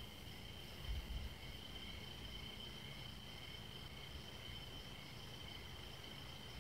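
Crickets trilling steadily in a continuous high-pitched chorus, with a brief low rumble about a second in.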